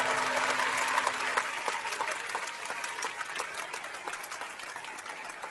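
Crowd applauding, loudest at the start and slowly dying down, while the last of a held low tone fades out in the first second or so.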